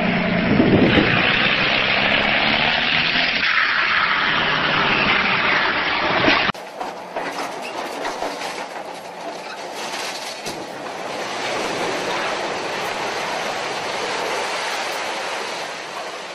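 A tractor engine runs hard. About six and a half seconds in, the sound cuts to demolition noise: an excavator breaking up a building, with a steady rumble and clatter of crumbling concrete and occasional knocks of falling debris.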